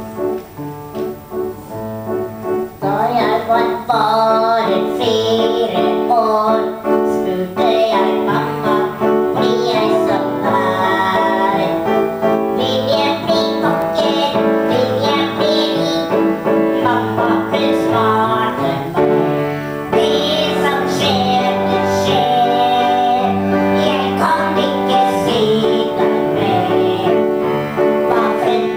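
A woman singing a Norwegian song into a microphone over instrumental accompaniment with a keyboard sound; the accompaniment plays alone for about three seconds before the voice comes in.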